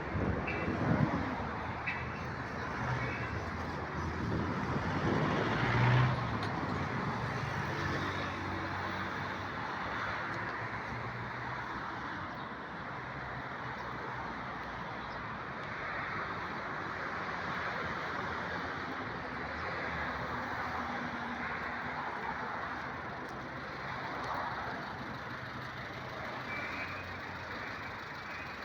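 Road traffic: cars and trucks running along a street in a steady wash of engine and tyre noise, with louder passing vehicles about a second in and again around six seconds.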